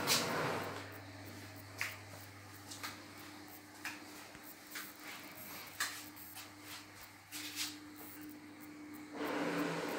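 Soft footsteps on a hard floor, about one a second, with a sharp click at the start, over a low steady hum.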